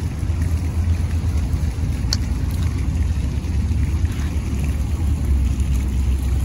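Wind buffeting a handheld camera's microphone: a loud, steady, fluttering low rumble, with one brief high click about two seconds in.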